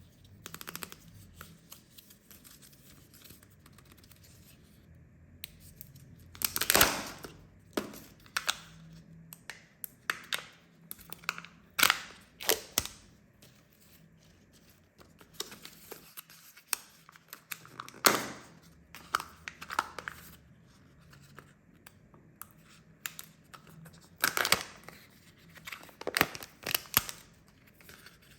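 Kinder Joy egg wrappers being torn open and crinkled by hand, in irregular bursts of tearing and rustling, with several loud rips spread through.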